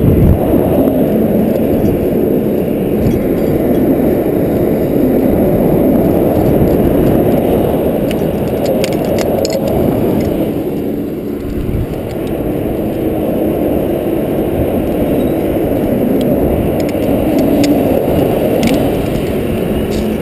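Engine running steadily, with a brief dip about halfway, and a few light metallic clinks from a rigging chain being wrapped around the trunk.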